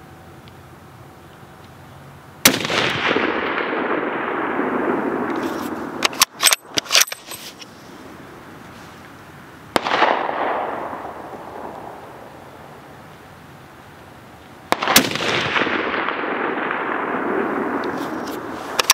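Barrett MK22 MRAD bolt-action sniper rifle in .300 Norma Magnum firing three heavy shots, about 2.5, 10 and 15 seconds in. Each sharp crack is followed by a long echo rolling back off the range and fading over about three seconds. A quick run of metallic clicks between the first and second shots is the bolt being worked to chamber the next round.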